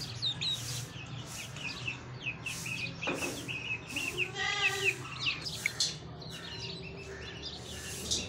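Chicks peeping continually, many short falling peeps overlapping. About halfway through, a single longer, lower call sounds over them.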